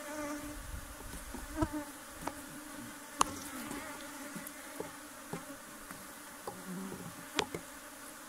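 Honeybees buzzing steadily around an opened hive during inspection. A few sharp clicks break in, the loudest about three seconds in and another near the end.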